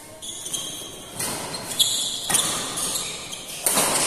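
Badminton rally: rackets strike the shuttlecock in a quick exchange, with about four sharp hits a half-second to a second apart that grow louder toward the end.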